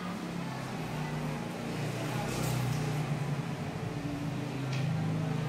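Steady low droning hum under a noisy background, with a brief high hiss about halfway through and again near the end.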